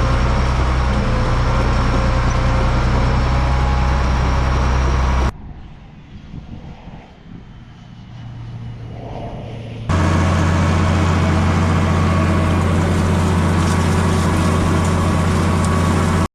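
Loud, steady drone of heavy farm machinery running. It cuts off abruptly about five seconds in to a quieter, uneven stretch, then comes back just as loud a little before ten seconds and runs until it stops dead.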